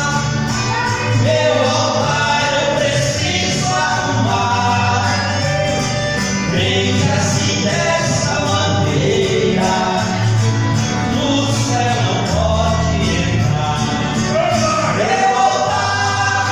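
Two men singing a Portuguese-language gospel song together, with instrumental backing and a steady bass line.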